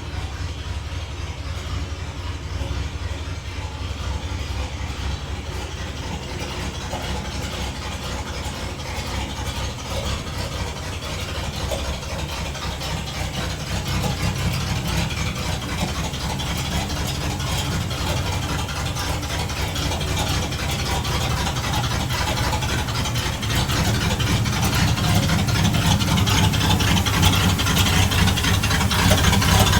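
1960 Dodge D100 engine running at about idle with a persistent mechanical noise that the owner connects to the camshaft. It grows louder about halfway through and again near the end.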